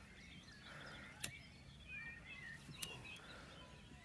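Birds chirping faintly, with two sharp knocks about a second and a half apart as pieces of wood are set down in a metal fire pit.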